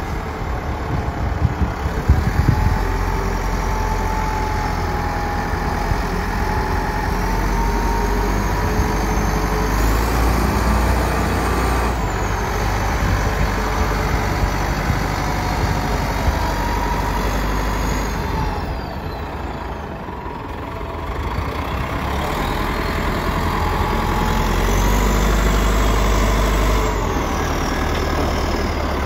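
Caterpillar 950B wheel loader's diesel engine running as the machine is driven about, its note and a whine rising and falling several times. A few knocks in the first couple of seconds, and the engine eases off briefly about two-thirds through before picking up again.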